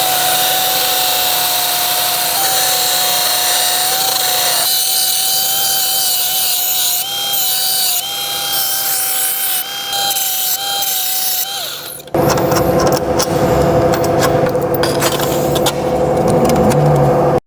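Electric power tool working sheet metal, running with a steady high whine that dips slightly under load. About twelve seconds in it gives way to a harsher sound full of rapid crackling.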